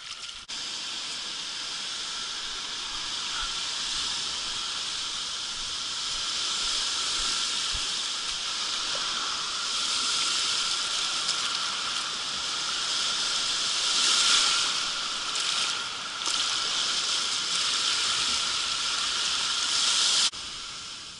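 Small sea waves breaking and washing up over a shingle beach, a steady hissing rush that swells a little about ten and fourteen seconds in. It cuts in suddenly just after the start and cuts off shortly before the end.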